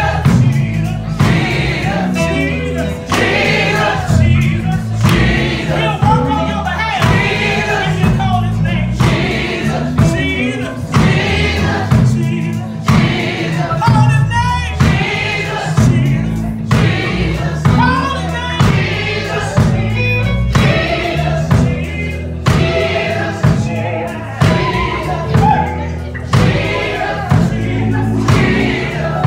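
Women's gospel vocal group singing in harmony over live backing with a steady beat and bass line.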